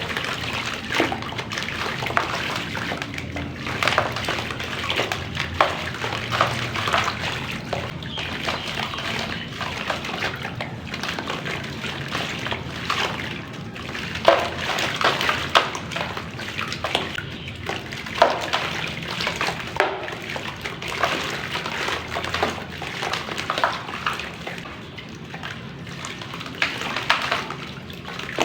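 Pieces of dry black clay crumbling in water: a continuous fizzing crackle with many small sharp cracks at irregular moments, over sloshing water.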